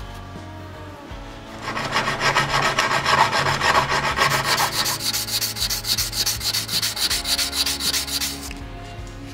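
Abrasive rubbed rapidly back and forth on a rusty steel wrench, scouring off the rust: a quick run of even scraping strokes that starts about a second and a half in and stops near the end.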